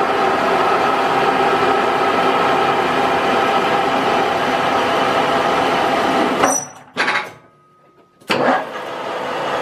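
Manual metal lathe running at 440 RPM through a single-point threading pass in 4140 steel, a steady gear whir. About six and a half seconds in the spindle is stopped on the brake, it goes almost quiet for about a second, then the motor starts again, reversed to run the carriage back to the start of the thread with the half nut still engaged.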